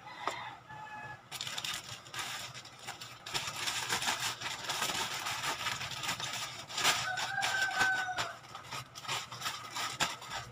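Plastic packaging crinkling and rustling as it is handled and crumpled, with a rooster crowing once in the background about seven seconds in.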